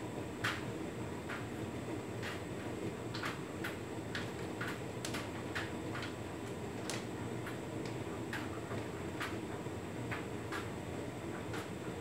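Hotpoint Ultima S-Line washer dryer tumble-drying on its cotton programme: a steady hum from the turning drum, with irregular light clicks and taps as the load tumbles inside.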